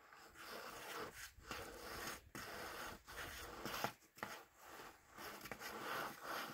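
Intermittent scraping and rubbing of a climber's body and clothing against the sandstone walls of an offwidth crack as he down-climbs, in short uneven bursts with a few sharp clicks.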